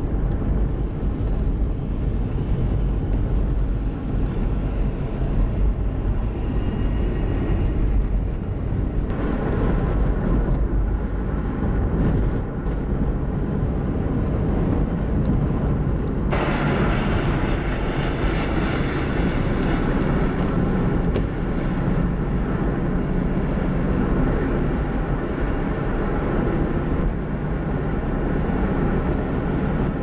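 Steady low rumble of road and wind noise from a vehicle driving on a snowy interstate in blowing snow, with more hiss after abrupt changes about nine and sixteen seconds in.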